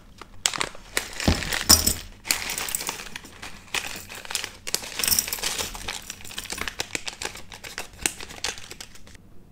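A silvery plastic bag of electronic components crinkling as hands open it and shake the parts out, with small clicks from the parts inside; the sound stops abruptly near the end.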